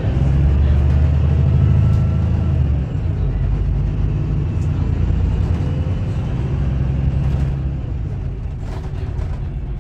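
Diesel drivetrain of a VDL Berkhof Ambassador city bus with a Voith automatic gearbox, heard from inside the passenger cabin while the bus is under way. It makes a steady, deep drone whose lowest note drops about three seconds in.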